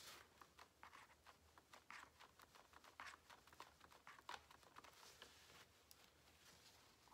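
Faint scraping and tapping of a metal palette knife on a paper palette as cold wax medium is worked into oil paint: a quick, irregular run of soft strokes.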